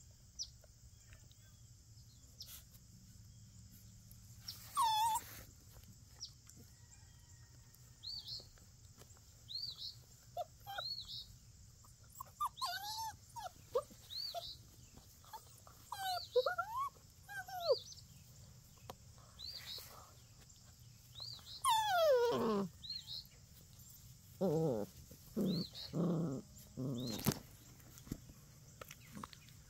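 Young puppies play-wrestling, giving many short high whines and yips, with a long yelp that falls in pitch about two-thirds of the way in, followed by a quick run of short, lower growls.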